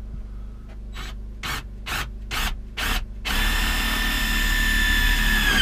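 Cordless drill run in five short trigger bursts, then held for about two seconds before stopping abruptly.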